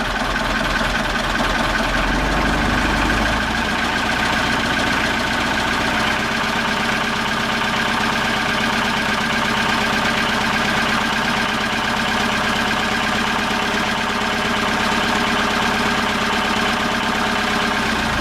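Perkins 4.108 four-cylinder marine diesel idling steadily, running with oil pressure up: a new oil pressure switch keeps the warning light off.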